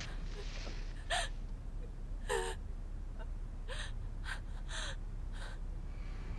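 A woman crying in a series of short gasping sobs, about six of them spaced a second or so apart, over a steady low hum.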